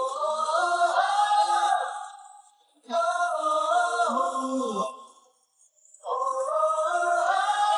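Sung vocals from a Chinese pop song with no clearly recognisable words: three long, drawn-out phrases separated by short pauses, with little accompaniment underneath.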